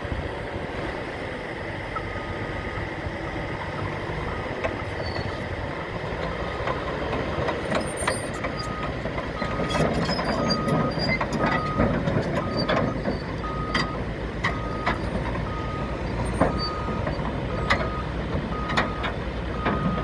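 Caterpillar D6N LGP bulldozer backing along a lowbed trailer deck: its diesel engine runs steadily while the reversing alarm beeps about once a second, regularly from about eight seconds in. Sharp clanks of the steel tracks on the trailer deck join from about six seconds in.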